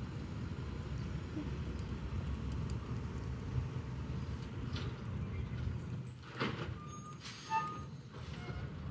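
Garbage truck's diesel engine running down the street, a steady low rumble, with a couple of short, sharper sounds about six and a half and seven and a half seconds in.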